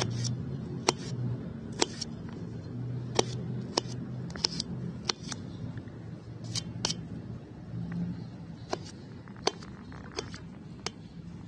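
Irregular sharp clicks of metal utensils knocking against a steel bowl as fruit is cut and handled, over a steady low hum.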